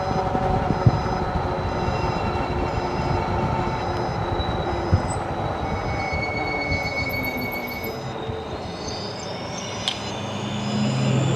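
E-bike turn signal beeping at an even pace over the rush of wind and tyres while riding. A rising whine and a low engine-like hum come in near the end.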